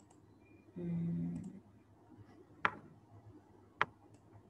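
Two sharp computer-mouse clicks, about a second apart, as a lesson app is clicked through. Shortly before them comes a brief low, steady hum lasting under a second.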